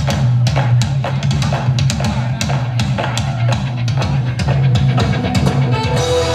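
Dance music for a reel: a band with drum kit and bass playing a quick tune, with an even drum beat at about three hits a second.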